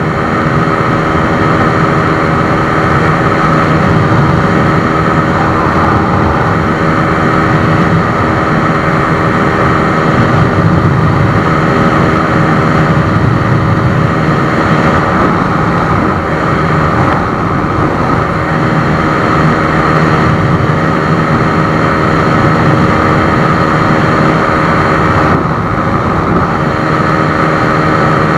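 Honda 150 cc single-cylinder four-stroke motorcycle engine running hard at a steady high speed, with wind noise rushing over the microphone.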